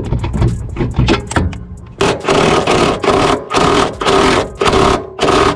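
Cordless impact wrench working a rear toe-arm bolt on a car's suspension: a rattle of sharp clicks, then about five short bursts of rapid hammering with brief pauses between them, as the bolt is broken loose.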